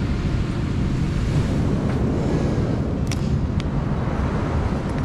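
Wind buffeting the microphone over a steady rush of surf. Two light clicks a little after three seconds in.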